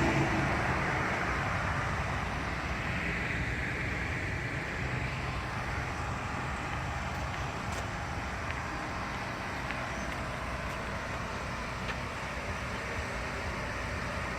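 Steady outdoor background noise, a low rumble with hiss over it that eases slowly, with a few faint ticks.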